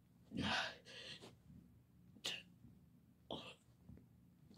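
Short, sharp puffs of breath from a boy doing push-ups, about one each second as he works through the reps.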